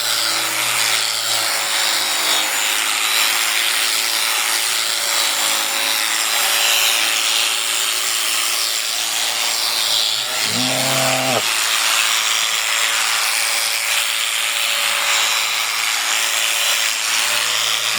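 Electric sheep-shearing clippers running with a steady, even buzz as they cut through the fleece. A short call, likely a sheep's bleat, breaks in once about ten and a half seconds in.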